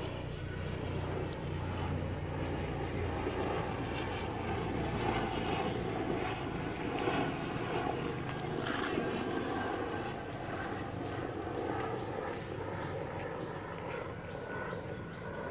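A steady low engine hum under a wash of background noise, the hum weakening about halfway through.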